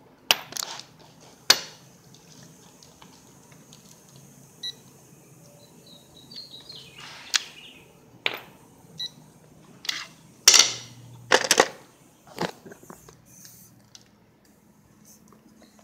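Scattered clicks, clinks and knocks of handling and metal tools, about a dozen, irregularly spaced, the loudest pair about two-thirds through.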